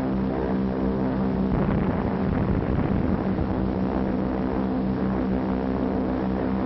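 Propeller aircraft engines droning steadily, an even hum on an old, narrow-band film soundtrack.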